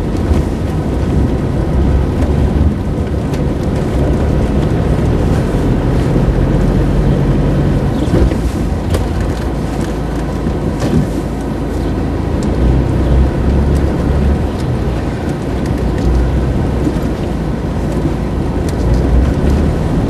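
Car interior noise while driving on a snow-covered road: a steady low engine and tyre rumble, with a few faint clicks.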